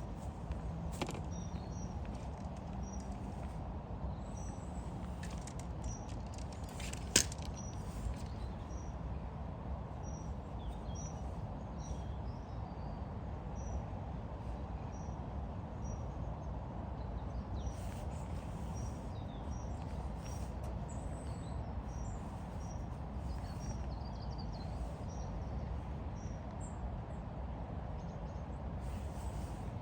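A small bird chirping one short high note over and over, about once a second, over steady low outdoor background noise, with a single sharp click about seven seconds in.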